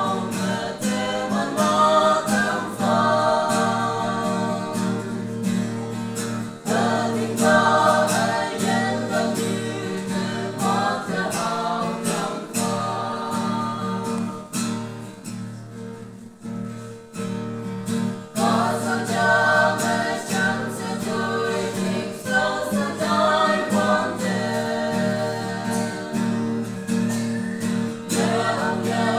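Small vocal group singing a gospel song in harmony, accompanied by a strummed acoustic guitar. The singing drops away for a few seconds about halfway through while the guitar plays on, then the voices come back in.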